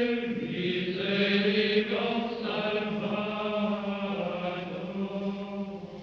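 Background music: a slow sung chant with long held notes moving over a steady low held note underneath.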